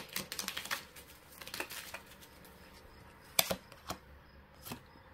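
Oracle cards being shuffled and handled: a quick run of soft card clicks, then a few single clicks.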